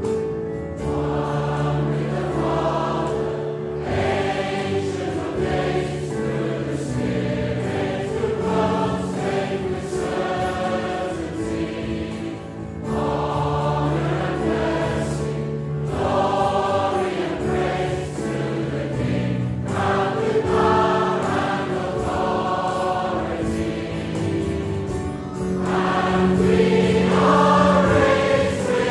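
A choir singing a slow Easter hymn to musical accompaniment, phrase after phrase, growing louder near the end.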